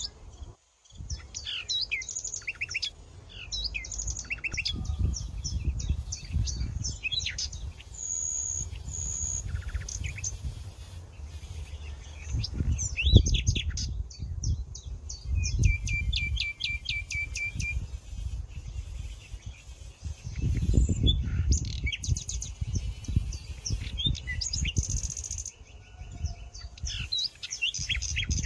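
Several small songbirds chirping and singing in quick, overlapping phrases, with a steady high trill about halfway through. A low rumble swells and fades underneath at times.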